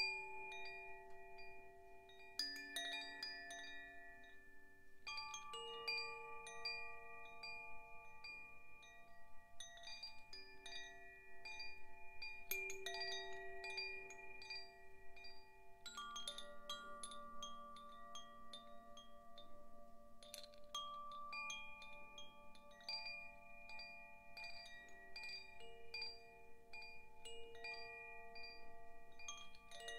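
Zaphir Sufi chime: its tuned metal rods are struck by the clapper in irregular clusters every few seconds. Each cluster opens with light metallic clicks, and the rods ring on in long, overlapping tones.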